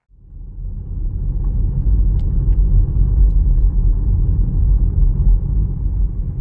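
A car driving: a steady low rumble of road and engine noise that swells in over about the first second.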